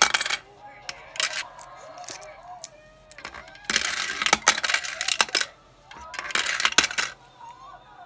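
Coins dropped one at a time into a clear plastic frog coin bank, clattering and rattling as each rolls down the bank's internal coin-sorting chute. There are several runs of a second or so each, the longest about four seconds in.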